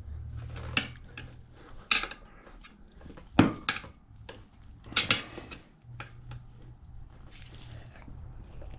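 Steel tire irons clinking and knocking against the wheel rim while prying a motorcycle tire bead over it, about six sharp, irregular clinks over a low steady hum.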